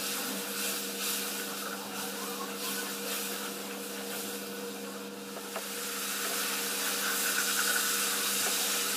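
Onion and spice masala, thinned with a little water, sizzling in a non-stick kadai and stirred with a wooden spatula that rubs and scrapes the pan, over a steady low hum.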